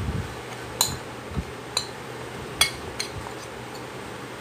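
Metal spoon clinking against a plate about four times as flour is scraped off it into a bowl.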